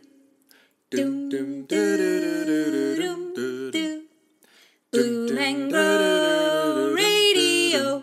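Outro music: an a cappella vocal tune, hummed without words. It comes in two phrases, the first starting about a second in and the second about five seconds in.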